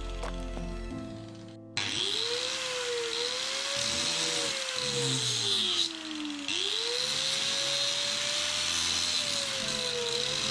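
Electric power tool starting up about two seconds in and running with a steady high hiss. Its motor pitch sags slowly and recovers, dropping sharply once in the middle and again near the end, as if pressed into the work and eased off.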